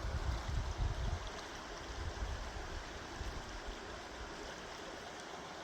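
A stream rushing over rocks, a steady wash of running water. A low rumble on the microphone fades out about a second and a half in.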